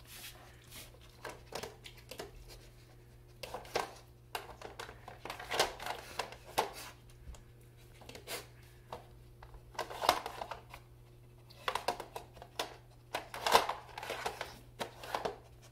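A plastic dog puzzle toy clattering as a dog noses and pushes its lids, sliders and blocks: irregular clicks and short rattling knocks with pauses between.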